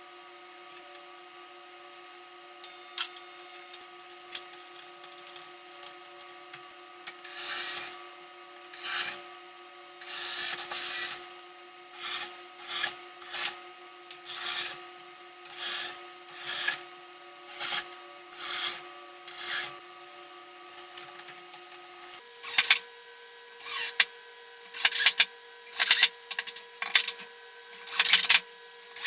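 Rapid, irregular back-and-forth scraping strokes of an abrasive or rasp on wood, about one a second, louder in the last few seconds, over a faint steady hum.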